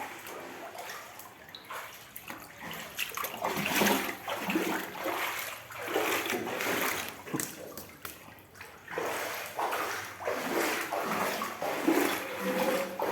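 Floodwater splashing and sloshing in irregular surges that rise and fall every second or two.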